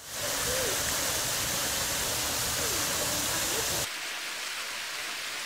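Steady rushing of a waterfall and river. Nearly four seconds in it drops suddenly to a quieter, thinner hiss.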